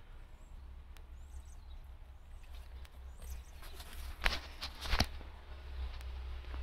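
Footsteps and handheld camera handling, with a few sharp knocks, the loudest two about four and five seconds in, over a low steady rumble. Faint bird chirps sound early on.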